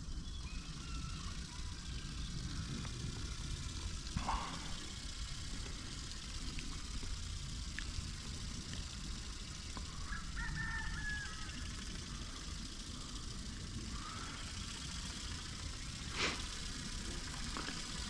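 Outdoor ambience: a steady low rumble with a few faint bird chirps, and two short brief sounds about four seconds in and near the end.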